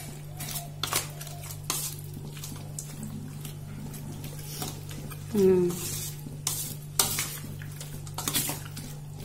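A metal spoon scraping and clinking against a stainless steel bowl in repeated strokes while it mixes raw chicken pieces in a wet marinade, over a steady low hum. A brief, louder low hum, falling in pitch, comes about halfway through.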